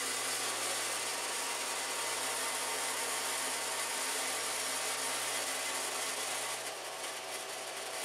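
Horizontal metal-cutting bandsaw running, its blade cutting steadily through a round aluminium bar: a continuous hiss over a low steady hum.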